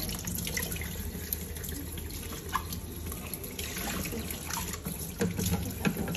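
Tap water running and splashing onto a soaked sea cucumber held in the hands and into a plastic basin below, with small drips and a few louder splashes near the end.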